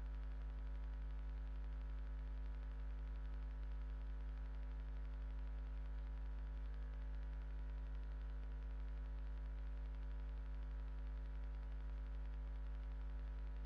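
Steady electrical mains hum with a faint hiss and no other sound.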